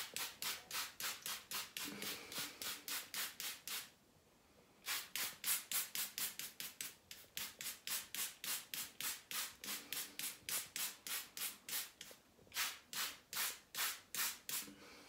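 Hand-pumped trigger spray bottle squirting onto a scalp: rapid, even squirts about three to four a second, stopping briefly about four seconds in and again near the twelfth second.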